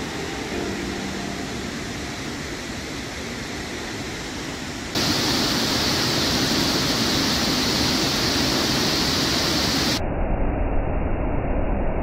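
Waterfall rushing: a steady noise of falling water, louder and hissier from about five seconds in, then duller with more low rumble after about ten seconds.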